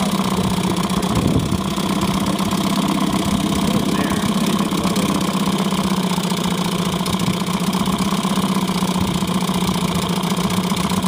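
1972 Evinrude 4 hp Lightwin twin-cylinder two-stroke outboard running steadily at an even speed.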